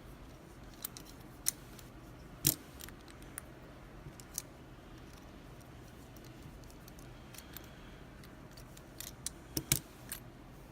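Small metallic clicks and clinks of a Russwin mortise lock cylinder's parts being handled as it is taken apart, scattered and irregular, the loudest about two and a half seconds in and a quick cluster near the end, over a faint steady hum.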